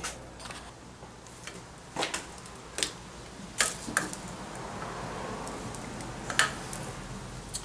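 A handful of sharp, irregular clicks and taps as a wire connector and clip are fitted to an ATV's starter motor terminal to hot-wire it.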